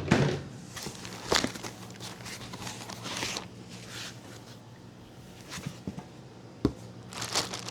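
Packaging being handled during an unboxing: scattered short rustles and clicks, with one dull thump near the end.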